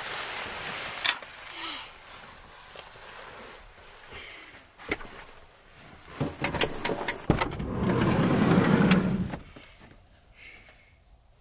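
Clicks and knocks of objects being handled, clustering a little past the middle, then a louder stretch of noise lasting about a second and a half.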